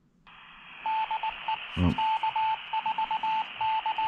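Handheld amateur radio receiving a 2 m repeater: a hiss opens about a quarter-second in, then the repeater's tone sounds over it, keyed on and off in a string of short and long beeps. A brief low thump comes about two seconds in.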